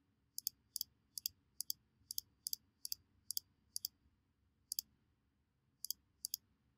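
About fourteen quick computer mouse-button clicks, each a short double tick. They come roughly three a second at first and grow sparser after the middle.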